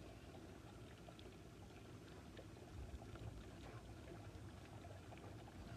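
Faint, steady trickle and splash of water from a garden hose running through a Farmall tractor's engine block and spilling out below, flushing the block after a vinegar soak to remove lime deposits.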